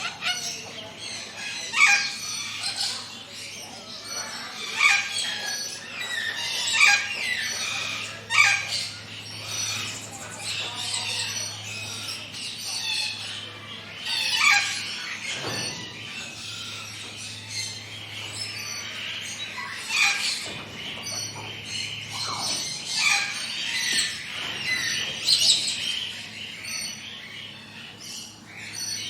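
Several forest birds chirping and calling, many short sharp chirps overlapping throughout, over a steady low hum.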